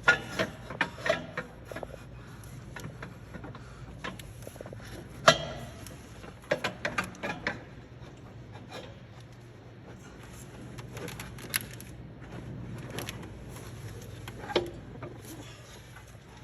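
Scattered sharp knocks and clicks of hand work on metal parts, in clusters near the start and around six to seven seconds, the loudest about five seconds in, over a steady low hum.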